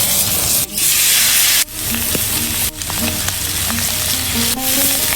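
Mutton sizzling loudly as it fries in hot oil, the sizzle dipping out briefly three or four times.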